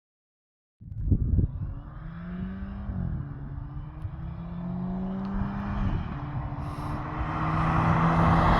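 MG HS SUV's engine pulling under acceleration while driving, its pitch rising, dropping once at a gear change about three seconds in, then rising again and getting louder, over road noise.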